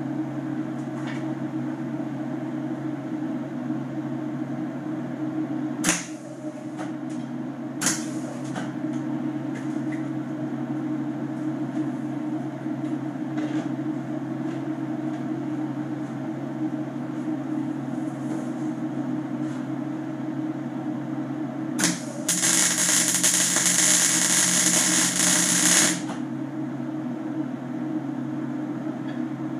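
Steady electrical hum from a Lincoln AC arc welder, with two sharp knocks about 6 and 8 seconds in. About 22 seconds in an arc is struck and sizzles loudly for about four seconds, then stops.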